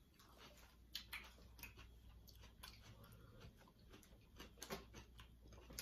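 Near silence with a low steady hum and a handful of faint, sharp clicks and taps from eating and handling food at a table.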